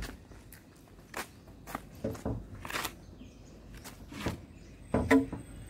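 Footsteps and a scattering of light knocks and clicks as a hand works the bonnet catch of a Maruti Suzuki Alto 800, with a louder knock near the end as the catch is worked.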